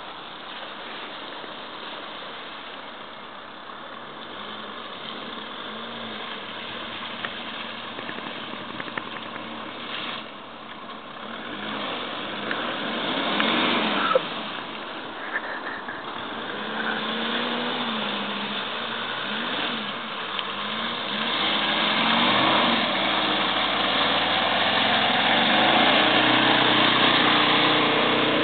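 Mercedes-Benz ML SUV's engine heard from outside as it drives off-road over mud and through puddles, its revs rising and falling. It grows louder over the second half as the vehicle comes nearer, with one brief louder hit about halfway through.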